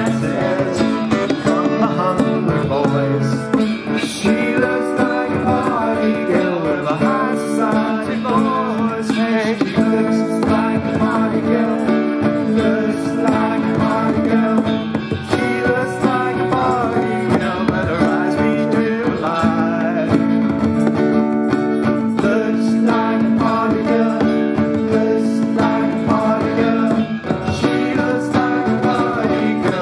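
Live acoustic band playing a song: strummed acoustic guitars over hand-played bongos, steady throughout.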